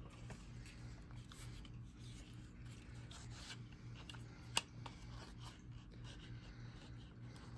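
Faint rubbing and scraping of a small cardboard UNO card box being opened by hand, with one sharp click about four and a half seconds in.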